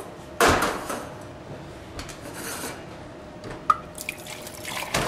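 A small metal cup clatters loudly against a stainless-steel bar counter about half a second in, with a sharp ringing clink later on. Near the end a draught tap is pulled and liquid runs into the cup.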